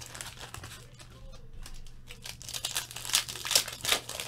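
Foil trading-card pack wrappers crinkling and tearing as they are ripped open and handled, in irregular crackly bursts, sparse around a second in and louder about three to four seconds in.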